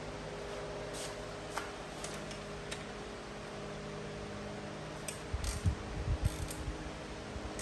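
Hand tools tightening the nuts on seat bracket bolts: a few scattered light metal clicks, then a run of low thumps and knocks about five seconds in, over a steady low hum.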